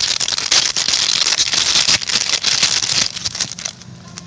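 Foil trading-card pack wrapper crinkling and tearing as it is ripped open, a dense crackle that stops near the end.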